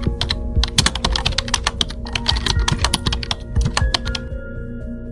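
Rapid, irregular clicks like keys being typed, over background music with held notes; the clicking thins out near the end.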